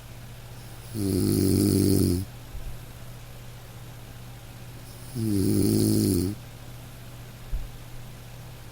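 A person snoring steadily: two snores about four seconds apart, each a pitched snore lasting just over a second.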